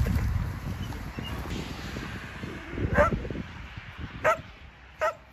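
A dog barking three short times in the second half, about a second apart, over a low rumble that fades during the first two seconds.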